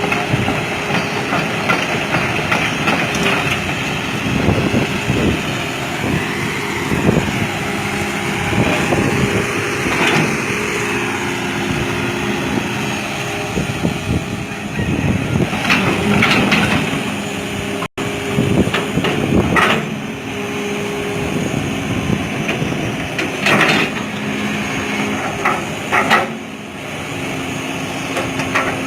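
Hydraulic excavator's diesel engine running steadily under working load, with repeated metallic clanks and knocks from the bucket and arm as it digs.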